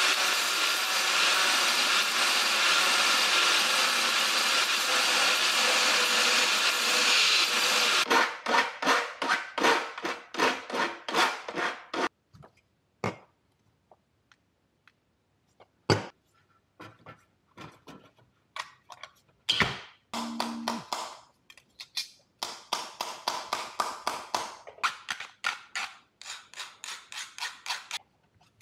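Angle grinder cutting through a steel valve arm on a replacement heat exchanger, running steadily for about eight seconds and then stopping abruptly. After it come runs of quick, regular rasping strokes, about five a second, and scattered clicks from hand tools working thin steel sheet.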